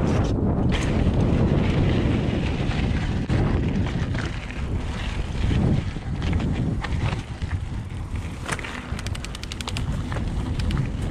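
Wind buffeting the microphone over the rumble of a mountain bike's tyres on a dirt trail, with scattered clicks and rattles from the bike. A quick, even run of clicks comes near the end.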